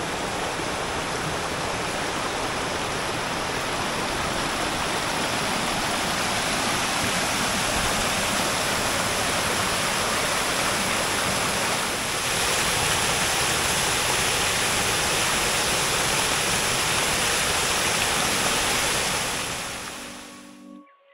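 Steady rushing of a rocky woodland stream cascading downhill, fading out near the end.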